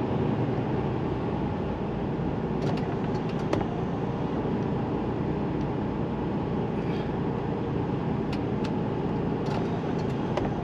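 Steady running noise of an HGV's diesel engine and cab as the lorry moves slowly forward, heard from inside the cab, with a few faint clicks.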